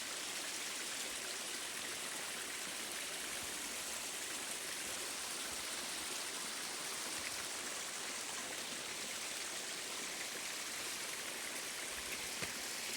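Small stream flowing steadily, an even hiss of running water with no change in level.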